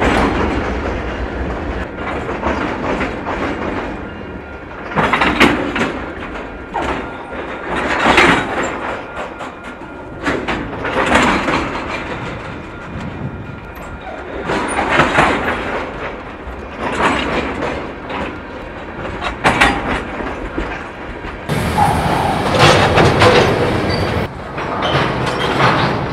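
Freight train cars rolling past with wheels clattering over the rail joints, broken by repeated loud bangs and clunks at irregular intervals as the couplers' slack runs in and out between the cars.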